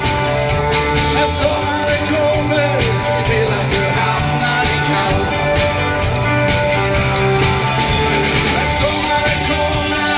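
Live band playing an instrumental passage on drum kit, keyboards and violin.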